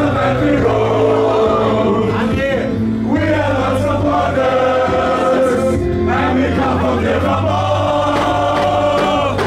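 A football team singing together as a group in a dressing-room victory celebration, with music and a steady low bass under the voices.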